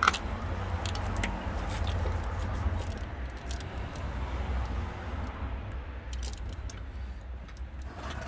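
Scattered light clicks and rustles of a gloved hand groping among wiring and parts at the back of a car's engine bay, over a steady low rumble.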